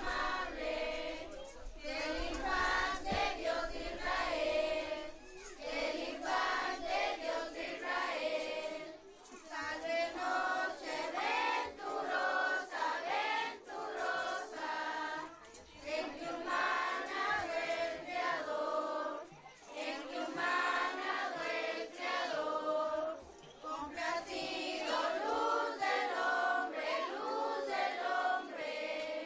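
A group of children and teenagers singing together, phrase after phrase, with short breaks for breath between the lines.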